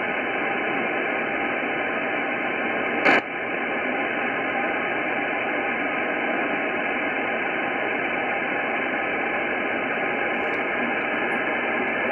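Steady hiss from an Icom IC-9700 transceiver's speaker, tuned to the RS-44 satellite downlink in upper sideband with no station talking. One sharp click comes about three seconds in.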